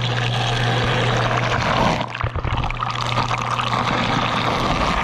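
Whirlpool dishwasher running, heard from inside the tub: the wash pump hums steadily under a loud rush of spraying and splashing water. Water is gushing out the side of the main wash arm instead of only from its jets, the fault the owner blames for the leak at the door. The rush breaks briefly about two seconds in.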